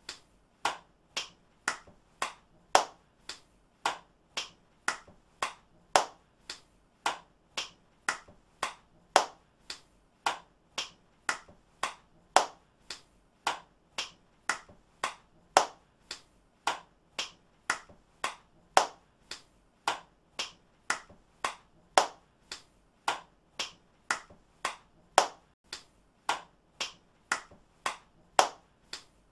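A single pair of hands clapping in a steady rhythm, about two sharp claps a second, some louder than others.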